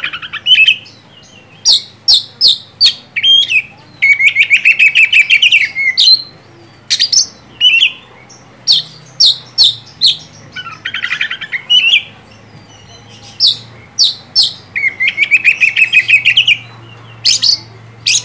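Oriental magpie-robin singing loudly: a run of sharp, high whistled notes, broken three times by a rapid chattering trill.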